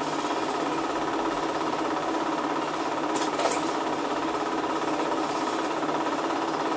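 Cine film projector running, its mechanism making a rapid, steady mechanical clatter.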